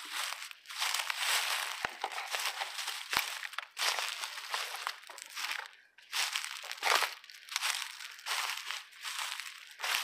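Footsteps crunching through thick dry leaf litter, a steady walking rhythm of rustling crunches with a short pause about six seconds in. A few sharp clicks fall between the steps.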